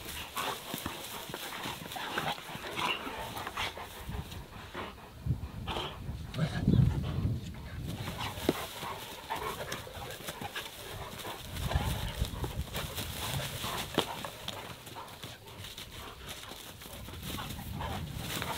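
Several young dogs play-fighting, with low growls and scuffling paws and bodies in the grass; the growling swells about a third of the way in and again past the middle.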